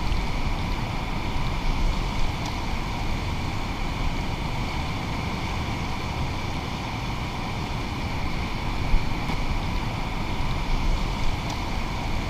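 Steady rush of river water and wind buffeting the microphone, with hands splashing lightly in the shallows and a faint steady whine running underneath. One short knock comes about nine seconds in.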